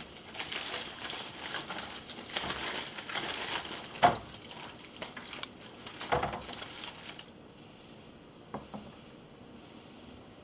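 Aluminium foil crinkling and rustling as it is pulled open around a rack of ribs, with two sharp knocks about four and six seconds in. It goes quieter after about seven seconds.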